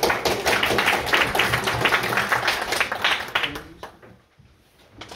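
Small audience applauding, a dense patter of hand claps that dies away just under four seconds in.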